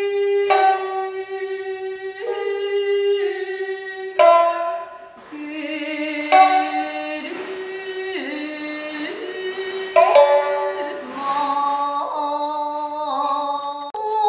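Jiuta-style shamisen played solo in a slow, traditional melody: sharp plucked notes, the strongest about half a second, four, six and ten seconds in, each left to ring while the pitch steps from note to note.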